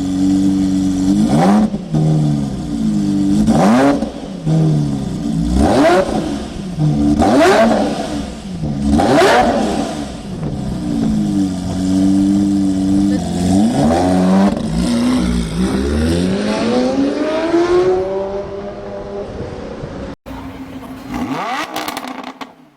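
Supercar engine revved hard again and again, its pitch shooting up and falling back about every two seconds, then one long, slower fall in pitch. About twenty seconds in the sound cuts off sharply and carries on quieter.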